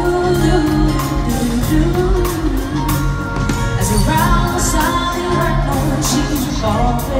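A live pop band playing a song with a steady drum beat, bass and keyboards, with singing over it, in a large hall.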